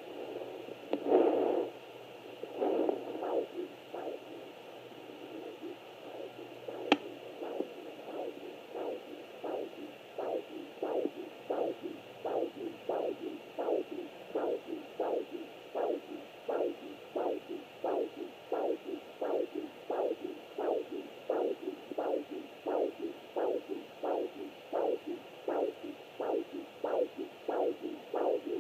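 Home fetal Doppler picking up a fetal heartbeat. A few irregular swooshes come first as the probe searches, then a click about seven seconds in, then a steady, rapid whooshing pulse of about two and a half beats a second.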